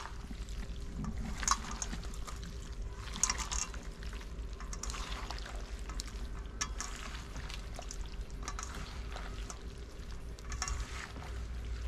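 Hands squeezing and tossing raw squid strips in a lemon-juice marinade in a stainless steel bowl, making irregular wet squishes.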